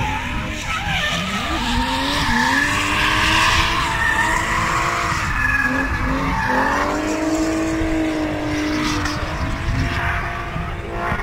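Drift cars sliding through a corner under power, tyres screeching. Their engines rev hard, the pitch climbing about two seconds in and again past the middle, then holding high as the cars pass.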